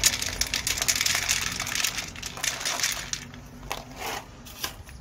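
Dry cat kibble poured from a plastic tub onto a paper plate: a dense rattle of hard pellets landing for about two seconds that thins out, then a few scattered clicks.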